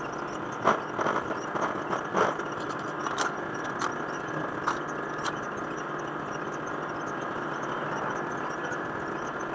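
Sewing machine motor running with a steady hum, with a few short clicks and knocks in the first half.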